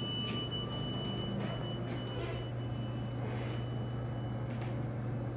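Elevator chime ringing out with several clear tones that fade away over the first two seconds, over a steady low hum.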